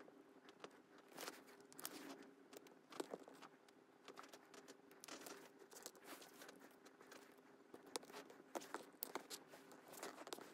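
Quiet handling noises: scattered light clicks and taps, with some crinkling of plastic film, over a faint steady hum.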